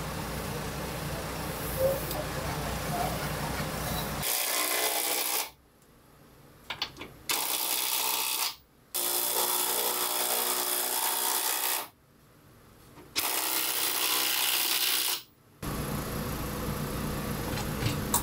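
Cordless drill boring into a purpleheart hardwood plank overhead. It runs in three bursts of one to three seconds, each cutting off suddenly, after a steady hum in the first few seconds.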